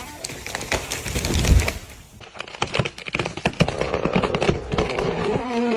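Wood cracking and snapping: a rapid, irregular series of sharp cracks, as of a tree's wood splintering and breaking.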